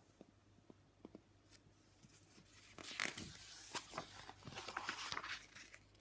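Picture book pages being handled and turned: a few faint clicks at first, then soft paper rustling and light clicks from about halfway through.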